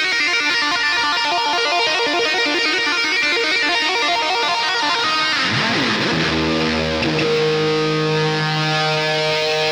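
Background music on plucked guitar: quick picked notes for the first half, then a sweep down into long held chords.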